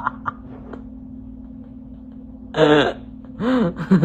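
A person's voice making short wordless vocal sounds: one brief burst past the middle, then a short sound that rises and falls in pitch near the end, over a steady low hum.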